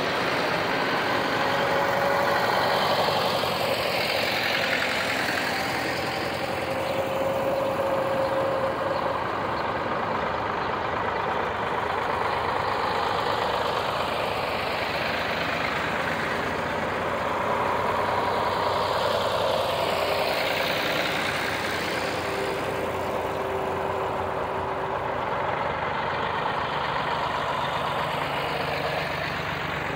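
Old farm tractors driving past one after another, their engines running steadily. The sound swells and fades as each one passes close, most strongly about 4 seconds in and again about 20 seconds in.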